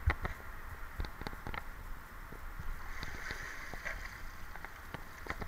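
A sunken bicycle being hauled up by rope out of canal water: water sloshes and splashes off it as it breaks the surface about three seconds in, with sharp knocks of the frame against the stone canal edge near the start and again near the end.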